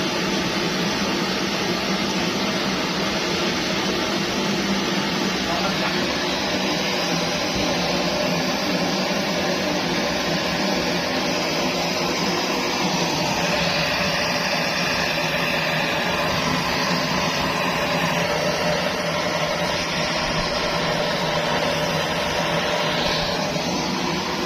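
Pressurized kerosene primus stove burning with a steady, constant rushing noise.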